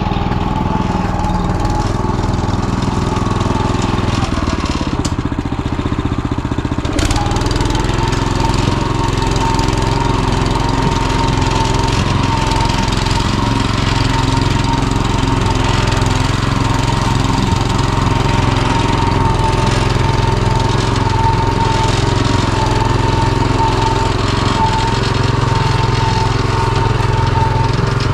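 Small single-cylinder engine of a walk-behind tractor running steadily; its note shifts about four to seven seconds in, then holds.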